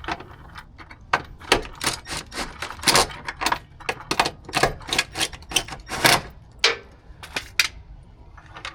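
Tools working on the side-step mounting bolts and brackets: a run of sharp, irregular metallic clicks and knocks, about three a second, that stops near the end.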